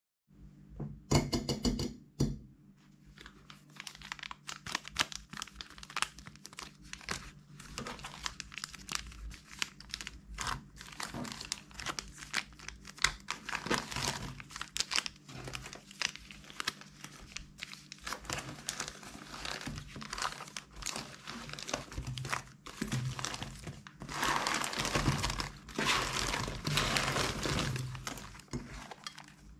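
Small plastic packets crinkling and rustling as hands pick them from a pile and drop them into a glass container. It is a dense, continuous run of crinkles, with louder spells just after the start and again near the end.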